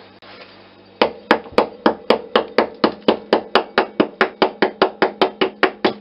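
Rapid, steady tapping, about four sharp strikes a second starting about a second in: a red-handled hand tool knocking at the ice crust frozen onto a refrigerator compressor's suction line.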